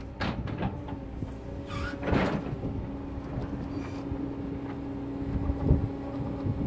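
Excavator engine running steadily while the bucket scrapes and clanks in the soil, the loudest scrape about two seconds in.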